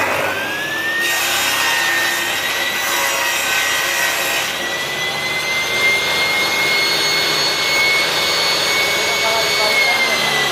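Homemade table saw running and cutting through wood. The motor's whine climbs in the first second, holds steady through the cut, and starts to fall near the end.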